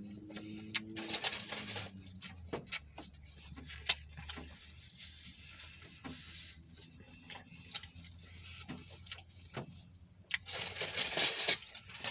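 Close-up eating sounds: chewing with many small clicks, and brief rustling of a paper napkin and food packaging, twice louder for about a second, about a second in and near the end.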